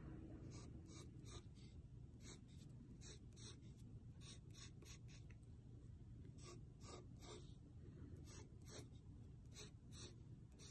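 Pencil scratching on sketchbook paper as long curved lines are drawn: a faint run of short, irregular strokes.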